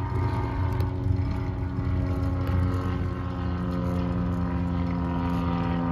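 Wind buffeting the microphone and tyres rolling on pavement while riding a bicycle, with a steady hum running under it.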